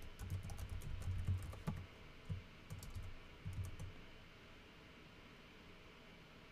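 Typing on a computer keyboard: a quick, irregular run of key clicks that stops about four seconds in.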